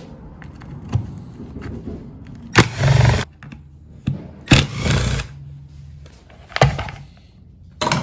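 Screwdriver taking out the top-cover screws of a Husqvarna 51 chainsaw and the cover being lifted off: four sharp clacks and scrapes of metal and hard plastic, a second or two apart.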